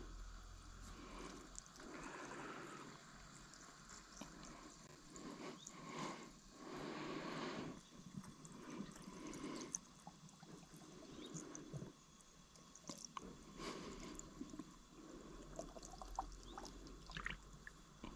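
Diesel fuel being poured into a tractor fuel filter to fill it before fitting: faint, on-and-off pouring and trickling, with a few small clicks.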